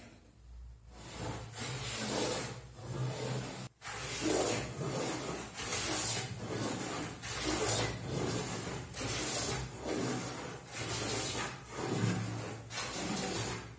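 Hand plane shaving a softwood table top, in a quick run of short hissing strokes, about two a second. The iron cuts thick curled shavings as the top is flattened.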